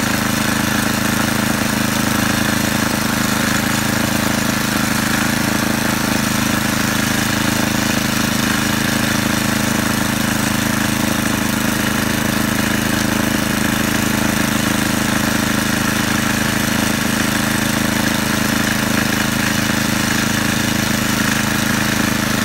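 Petrol snowblower engine running steadily, an unbroken mechanical drone.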